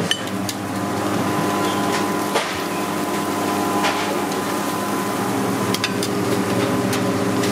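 Steady droning hum of commercial kitchen equipment, with a few light clicks and clinks of metal tongs and china plates.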